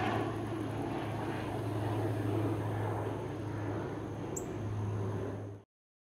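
Engine of heavy earthmoving equipment running steadily with a low hum, cutting off suddenly near the end.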